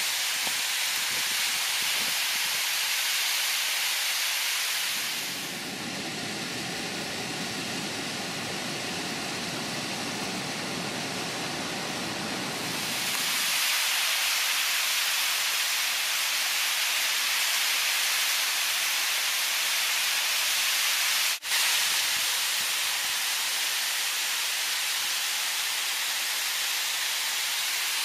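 Snowmelt waterfall cascading over rock: a steady rushing hiss of falling water. From about five seconds in to about thirteen seconds in it turns deeper and duller. A brief dropout comes about three quarters of the way through.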